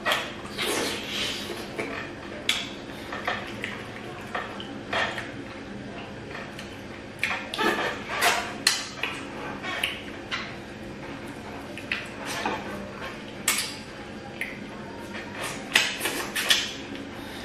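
Close eating sounds of two people eating goat meat by hand: chewing, lip-smacking and sucking meat off the bone, heard as irregular short wet clicks and smacks.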